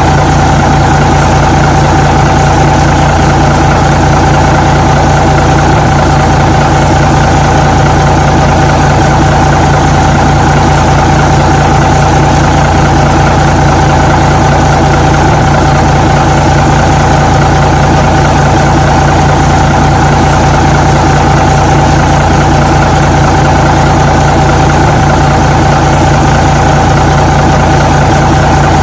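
Truck engine idling at a steady, unchanging speed.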